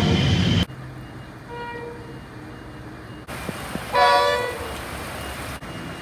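Diesel locomotive horns in a string of short edited clips: a horn's dying tail over the rumble of a passing container freight train, then a faint distant horn, then a short loud multi-note horn blast about four seconds in.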